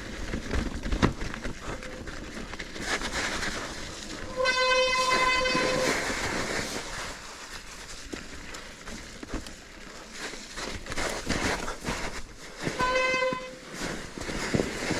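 Mountain bike riding noise, with wind on the microphone and rattling knocks over rough trail. Two steady high-pitched squeals come in, one about four and a half seconds in lasting over a second, and a shorter one near the end.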